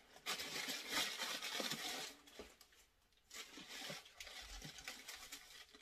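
Tissue paper rustling and a cardboard shoebox being handled as a sneaker is unwrapped and lifted out. The rustling comes in two stretches, with a short quieter pause about halfway.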